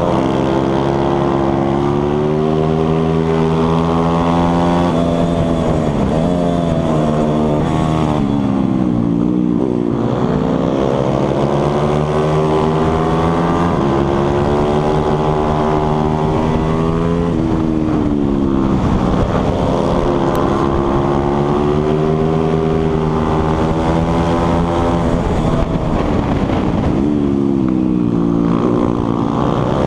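Stock 140cc four-stroke single-cylinder pit bike engine racing, heard close up from the bike itself. It revs up through the gears, its pitch climbing, then drops off for the corners, several times over.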